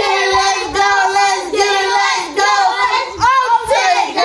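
A woman and a girl singing together, loud, in long held notes broken into short phrases.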